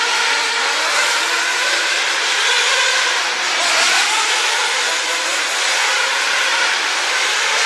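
Several radio-controlled off-road racing cars running on the track together, their small motors giving a steady high whine over a constant hiss, the pitch rising and falling as they speed up and slow down.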